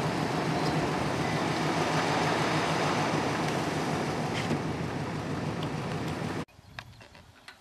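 A vehicle running and driving over rough ground: a steady rumble that cuts off abruptly about six and a half seconds in, leaving quiet with a few faint clicks.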